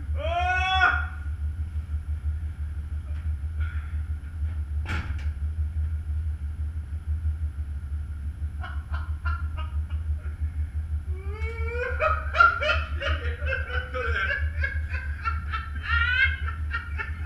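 Steady low machinery drone throughout, with a high squeal near the start, one sharp knock about five seconds in, and bursts of laughter from about eleven seconds on.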